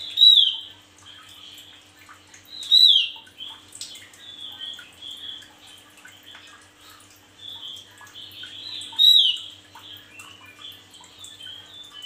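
Male Javan grey-throated white-eye (opior jawa) calling and twittering. Three loud, sharp down-slurred calls come near the start, about three seconds in and about nine seconds in, with softer rapid twittering between them.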